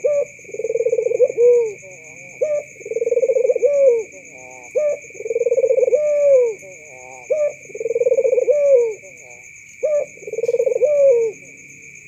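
White, red-eyed ringneck dove (puter) cooing: five repeated phrases, each a long rolling coo followed by short rising notes, about every two seconds, with the last ending shortly before the end. A steady high insect trill runs behind.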